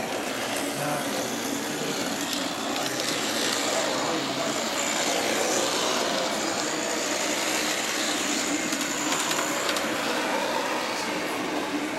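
Steady background din of an exhibition hall, a continuous wash of noise with no clear words.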